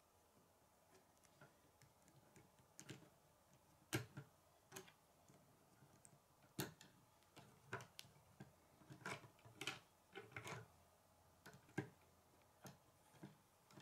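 Plastic K'nex pieces clicking and snapping as they are fitted together by hand, with light handling rattles between. The sharpest snaps come about four and seven seconds in.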